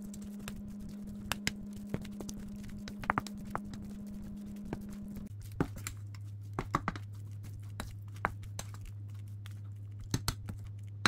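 Silicone spatula stirring and pressing seasoned sushi rice in a stainless steel bowl: irregular soft clicks and scrapes against the metal. Under them runs a steady low hum that drops in pitch about five seconds in.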